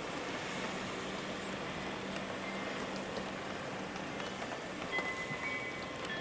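Steady rain falling, an even hiss. A few faint, high ringing chime notes come in near the end.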